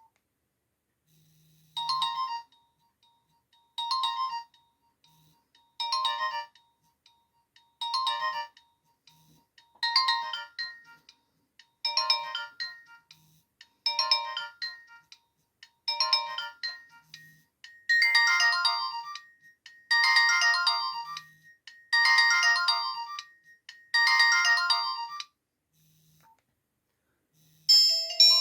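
Nokia 1280 ringtone playing: a short melodic phrase repeats about every two seconds, a dozen times, growing louder and fuller about two-thirds of the way through, then stops. A different ringtone begins right at the end.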